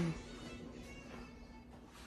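Faint background music.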